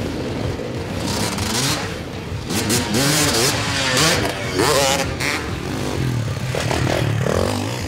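Motocross bike engine revving hard and easing off again and again as the rider accelerates over the dirt track, its pitch rising and falling repeatedly, loudest towards the middle.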